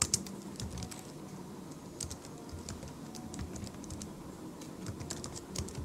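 Typing on a computer keyboard: irregular keystroke clicks in small clusters with short pauses between them.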